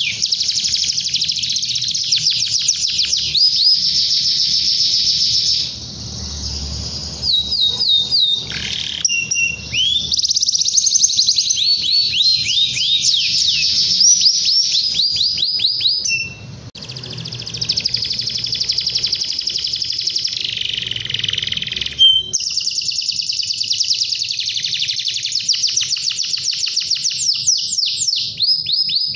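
Domestic canary singing long, fast trilled phrases of rapid repeated high notes, rolling on with only a few brief pauses.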